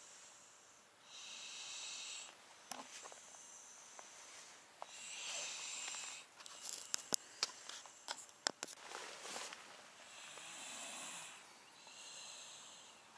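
Slow breathing of a sleeping child, a soft hissy breath about every four seconds. A few sharp clicks come about seven to nine seconds in.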